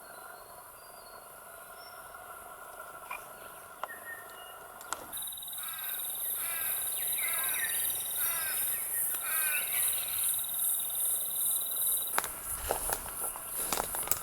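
Outdoor ambience of insects and birds. Insects shrill steadily, joined about a third of the way in by a loud pulsing high hiss and a steady high trill, while a bird calls over and over in short chirps. Near the end the trill stops and footsteps crunch on dry leaf litter.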